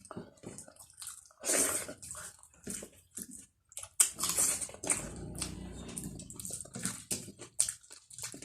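Close-up eating sounds: a person chewing a rice-and-curry meal with wet mouth smacks and clicks, in short irregular bursts.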